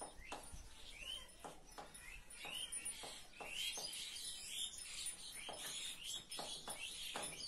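Chalk tapping and scratching on a chalkboard in short irregular strokes as words are written, with short high chirps of small birds throughout.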